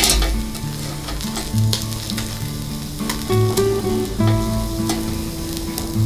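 Food sizzling and crackling over a fire, with a sharp pop at the very start, under background music of slow held notes.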